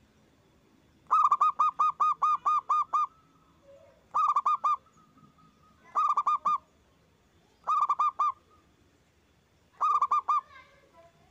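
Zebra dove (perkutut) singing: five bursts of rapid staccato cooing notes, the first a long run of about nine notes and the rest shorter runs of four or five, spaced about one and a half to two seconds apart. Faint chirps follow the last burst.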